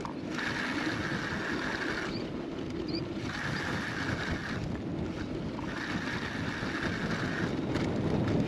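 Mountain bike riding a dirt trail: tyre and rolling noise with wind on the microphone, and a high buzz that comes and goes three times.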